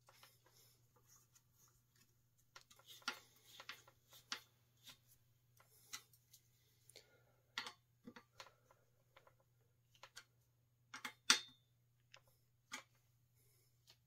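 Scattered small metal clicks and taps as a side-pull caliper brake is handled on a bike frame and its mounting bolt is turned with a hex key, with the loudest clink about eleven seconds in. A faint steady hum runs underneath.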